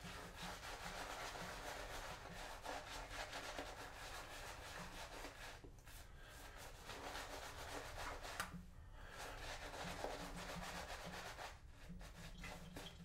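Two-band finest badger shaving brush scrubbing shave-soap lather onto a wet face, building a face lather: a soft, steady scratchy swishing of quick back-and-forth strokes, broken by brief pauses about six, nine and twelve seconds in.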